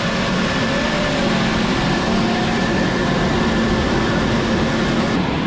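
Steady whir of artificial foam-snow machines blowing snow over a crowd, with a low hum and crowd voices faintly underneath.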